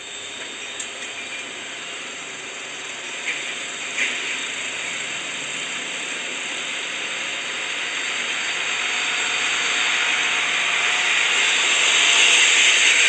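Heavy fuel tanker trucks driving past on a road: a steady, hissing rush of traffic and tyre noise that grows louder toward the end as the trucks come closer.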